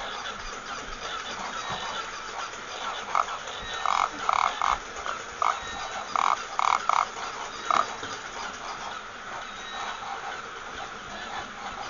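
Battery-operated walking toy animal's built-in noisemaker giving a string of short squawks, about ten in a row, starting a few seconds in and stopping about two-thirds of the way through, over a steady hiss.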